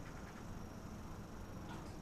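Faint light clicks of small laptop parts being handled, over a steady low hum.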